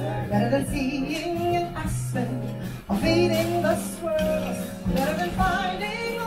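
Live jazz: a woman singing a melody over a small band's accompaniment, with steady low notes under her voice.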